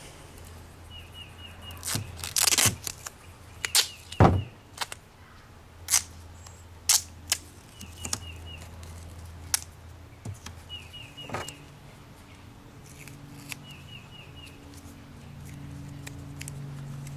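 Duct tape pulled off the roll with one long rip about two seconds in, followed by sharp crackling clicks of the tape being handled, torn and pressed on.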